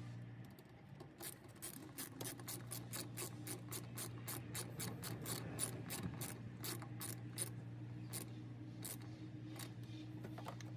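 Hand socket ratchet clicking as it tightens a worm-drive hose clamp on a coolant hose. A steady run of sharp clicks, about three or four a second, starts about a second in and stops near the end.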